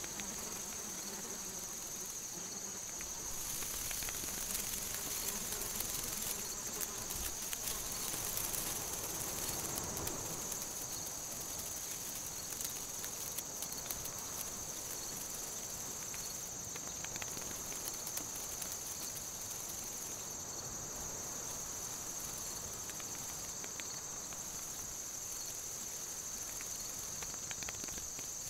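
Forest ambience of insects chirring steadily at a high pitch, over a soft even background hiss with a few faint ticks.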